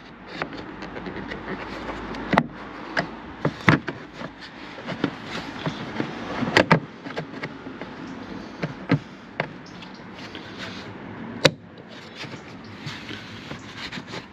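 Plastic engine-bay covers over the battery and fuse box being pressed and clipped into place: a series of sharp plastic clicks and knocks with rustling and scraping between them.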